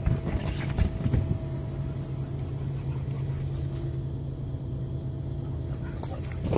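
Inflatable bounce house's electric blower running with a steady low hum, with a few thumps in the first second or so.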